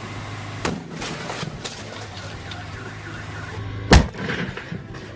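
A firecracker going off inside a running microwave oven: a steady hum with a few sharp crackles, then one loud bang just before four seconds in that rings on briefly.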